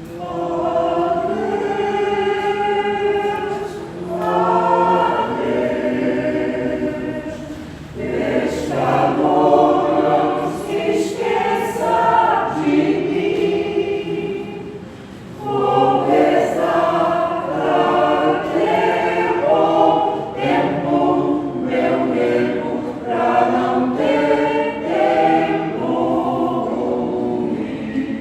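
A choir singing in several voices, in long held phrases with short breaths between them.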